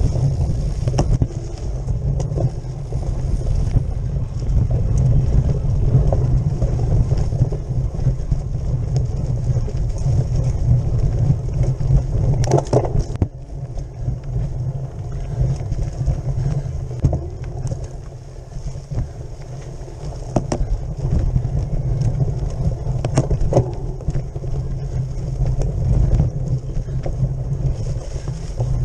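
Wind buffeting and steady low rumble from a camera mounted on the handlebars of a cyclocross bike riding a bumpy dirt trail, with scattered knocks and rattles from the rough ground. Two sharper knocks stand out, one a little before the middle and one about four-fifths through.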